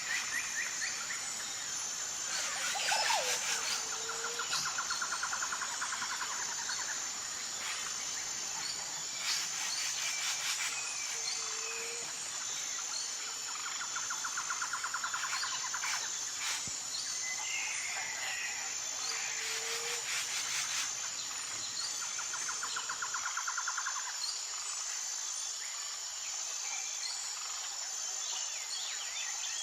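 Jungle ambience: a steady high-pitched insect drone with bird calls over it, a rapid trill that comes back every few seconds, short low whistled calls and scattered chirps.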